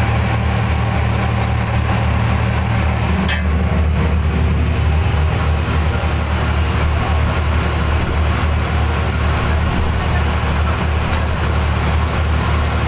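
Fishing boat's engine running steadily, a loud low drone; the pitch of the hum shifts slightly about three seconds in.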